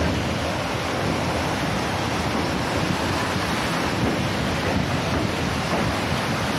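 Steady rush of churning sea water below the bridge, with wind buffeting the microphone.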